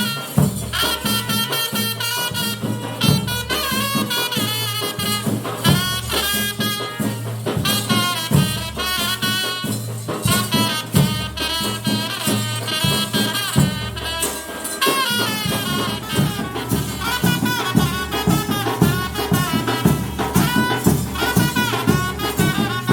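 Ritual band music: a reed wind instrument plays a wavering, ornamented melody over a steady low drone, with drums beating under it. The drumming thickens about fifteen seconds in.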